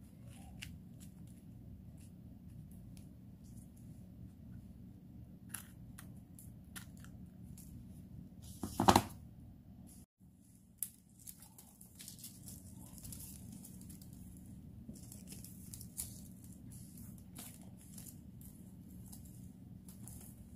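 Knife slicing and scraping bitter bolete mushrooms, with the cut pieces handled over newspaper: scattered soft cuts and scrapes, and one louder crunch about nine seconds in, over a low steady hum.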